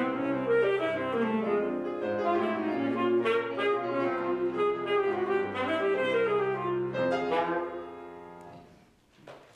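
Alto saxophone with grand piano accompaniment playing the closing phrases of a piece. The last held note dies away about eight seconds in.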